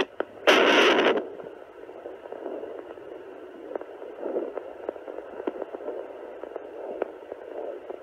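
Sonoline B 3 MHz pocket fetal Doppler's speaker putting out static hiss and scraping crackle as its gelled probe is moved over the belly, searching for a heartbeat. A loud crackling burst in the first second as the probe is shifted, then a steady hiss with faint swishes and clicks.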